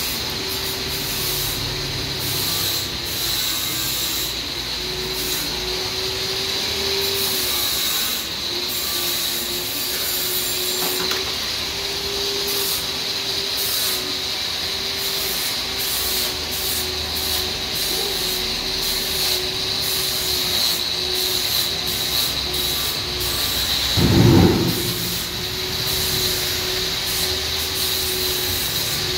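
Steady machine hum with a constant high whine, and a single thump about three-quarters of the way through.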